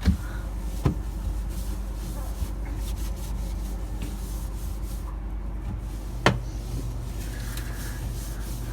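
Wiping and rubbing inside a refrigerator during cleaning, with three sharp knocks of shelves or containers: one at the start, one about a second in and one about six seconds in, over a steady low hum.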